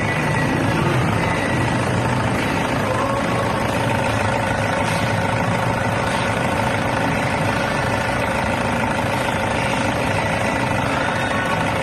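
Toyota Innova engine idling steadily, with a faint steady whine over it.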